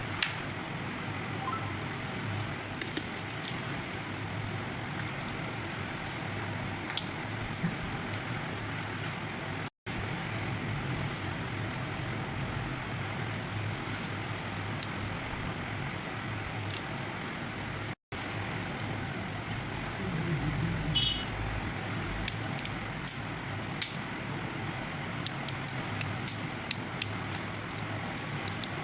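Steady background traffic noise with scattered light clicks and taps. The sound cuts out completely for an instant twice.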